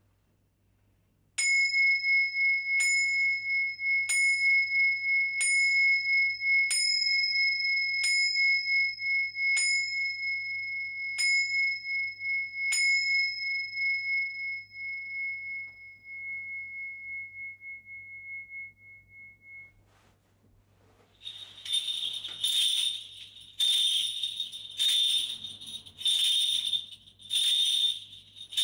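Tingsha cymbals struck together nine times, about once every second and a half, each strike leaving a bright two-pitched ring that builds up and slowly fades away. About 21 seconds in, a kagura suzu, a Shinto bell tree hung with clusters of small bells, is shaken in rhythmic bursts of jingling, about one a second.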